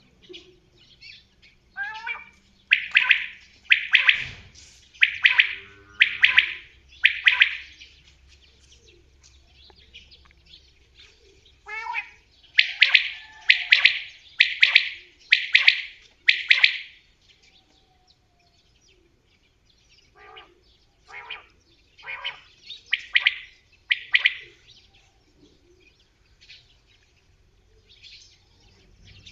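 Common quail calling: three series of five loud, sharp calls about one a second, each series opening with a short rising note and separated by pauses of a few seconds, the last series softer.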